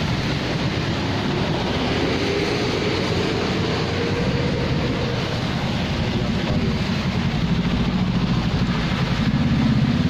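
Steady roar of an LPG gas ring burner under a pot of boiling soup, with a low engine-like hum growing louder in the last few seconds.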